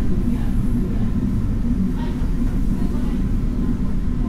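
DRC1000-series diesel railcar running at about 30 km/h: a steady low rumble of its diesel engine and wheels on the rails.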